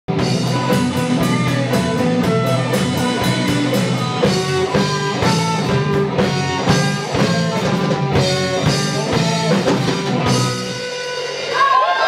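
Live band with drum kit and guitar playing a rock song at full volume, with a steady beat. About eleven seconds in, the amplified music cuts off abruptly as a cymbal, struck hard and flying off its stand, slices the power lead. Ringing and shouting voices follow.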